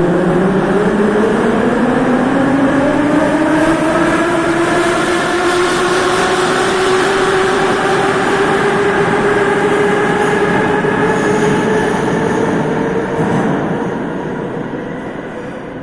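Moscow Metro train pulling out of the station. Its electric traction motors whine, rising in pitch over the first several seconds and then holding steady. The sound fades near the end as the train leaves.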